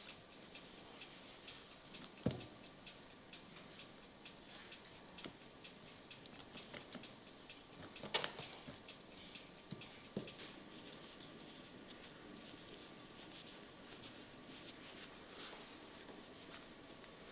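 Faint scattered clicks and small taps in a quiet room, with a sharper knock about two seconds in and another about eight seconds in.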